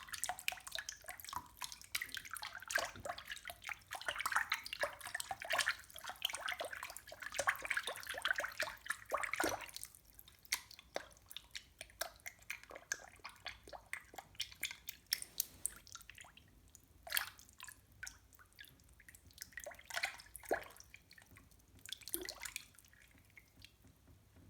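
Water dripping and splashing, dense and busy for about the first ten seconds, then thinning to scattered single drops that die away near the end.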